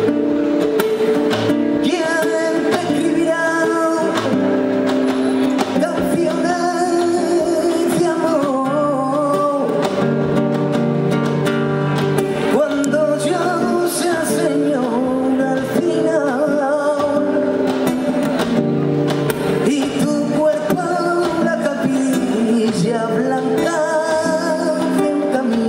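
Live flamenco music: a man sings long, wavering, ornamented lines over a strummed and plucked acoustic guitar.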